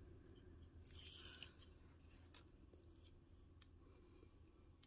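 Near silence with faint handling of paper and tape: a brief soft rustle about a second in, then a couple of light ticks.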